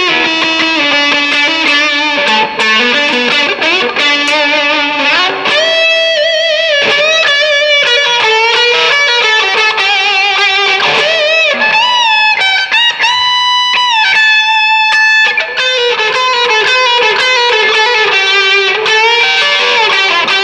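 Gibson 1957 reissue electric guitar, played through a Marshall DSL-1 amp with an MXR MC402 and a distortion pedal, playing a distorted lead line. Quick runs of notes open and close it, and in the middle come bent notes with vibrato and several long sustained notes.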